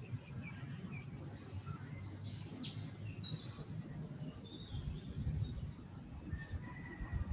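Several small birds chirping, with short high calls scattered throughout, over a low rumbling background noise.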